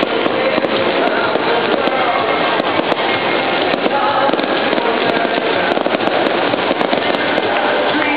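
Fireworks display going off in quick succession, many sharp crackling reports close together over a continuous rumble, with music playing underneath.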